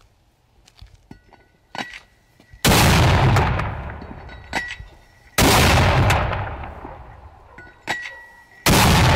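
Infantry mortar firing three rounds, about three seconds apart, each launch a loud blast that rumbles away over a couple of seconds. Just before each blast comes a short clink and a brief ringing note as the round is dropped into the tube.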